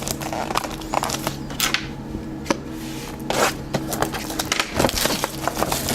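Hands unwrapping and handling a trading-card box and its packs: irregular rustling, scraping and crinkling of cardboard and wrapper, in short bursts over a steady low hum.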